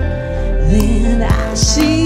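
A woman singing a held, gliding melody into a microphone over amplified music with a steady bass line and drum hits.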